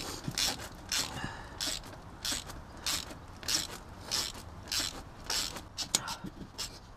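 Socket ratchet wrench clicking through short back-and-forth strokes, a rasping burst roughly every half second or so, as it turns a tool on a motorcycle chain.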